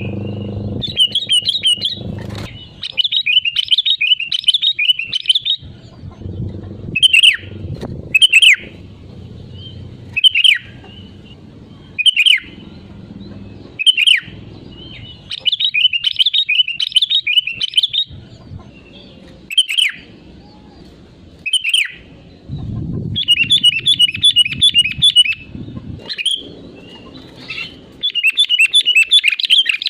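Sooty-headed bulbul singing: bursts of rapid, bubbling chattering notes alternate with single short call notes that slide downward, repeated every second or two. A low rumble sits under many of the phrases.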